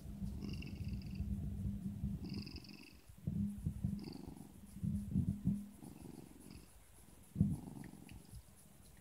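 Siamese cat purring while its belly is stroked. The purr is strong and steady at first, then comes in shorter, weaker spells.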